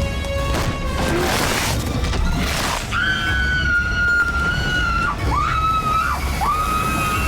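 Dramatic film score with a burst of crashing and splashing in the first few seconds. After that a steady high whine sets in, dipping in pitch twice and climbing back.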